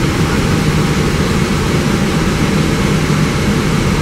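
Steady flight-deck noise of an Airbus A320 on approach: airflow and engine noise with a low steady hum underneath.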